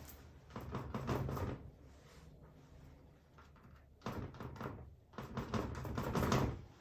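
A sponge dabbing acrylic paint onto a stretched canvas: two runs of quick soft taps, one about half a second in and a longer one from about four seconds in.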